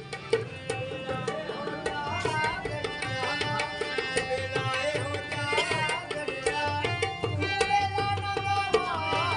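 Live music from a gathering: hand drums beating a quick, steady rhythm under a held melody line that slides in pitch now and then.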